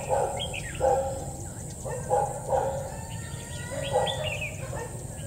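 Red-whiskered bulbul giving short chirping phrases, mixed with a dog barking several times nearby.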